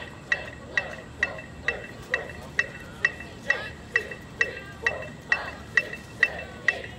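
An electronic metronome beeps a steady marching tempo, a little over two clicks a second, with voices faintly between the beats.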